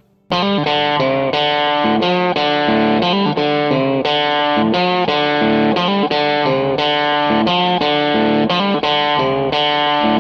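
Background music: an effects-laden electric guitar picking a fast run of notes at a steady beat, starting suddenly just after the opening.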